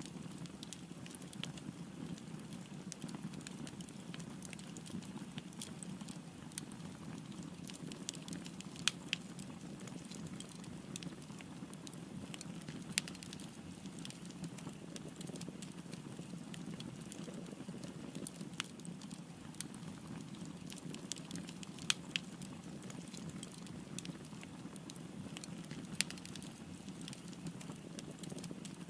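Wood fire burning: a steady low rush of flames with irregular sharp crackles and pops throughout, and a handful of louder snaps.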